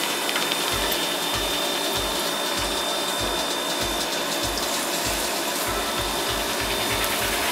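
Batter-coated bread slices deep-frying in hot oil in a kadhai: a steady sizzle. Under it runs a regular low thud about one and a half times a second, with a faint steady high whine.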